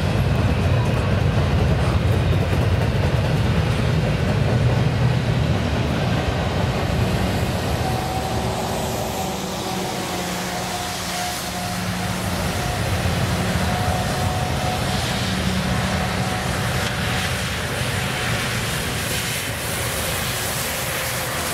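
Double-stack intermodal container train rolling past at speed: a steady rolling noise of its well cars' wheels on the rails.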